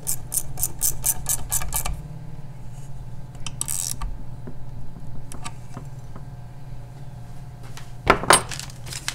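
Small ratchet wrench clicking rapidly, about four or five clicks a second, as a nut on the outboard's water pump housing is run down; it stops about two seconds in. Then light handling of metal parts, with a couple of sharp metallic knocks near the end, the loudest sounds.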